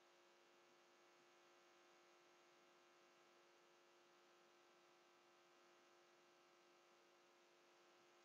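Near silence: a faint, steady electrical hum made of several fixed tones, with no other sound.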